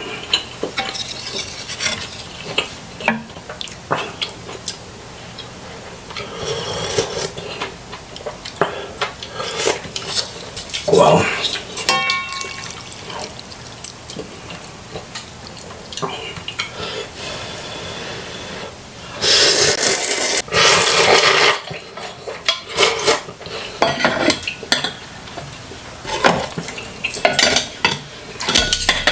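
Close-miked eating sounds from a bowl of instant noodle soup: a spoon clinking and scraping against the pan between bites of noodles, with chewing. About two-thirds of the way through come two loud, long slurps.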